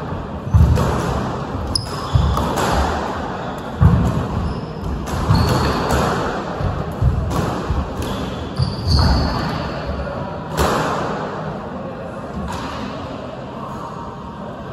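Squash rally: the ball cracking off racket and walls about once a second, with players' shoes thudding and squeaking on the wooden court floor. The hitting stops near the end as the rally finishes.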